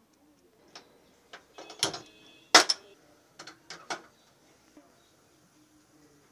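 Aluminium cookware knocking and clanking on a gas stove: a run of sharp knocks with a short metallic ring, the loudest about two and a half seconds in, as a kadai is handled and set on the burner grate.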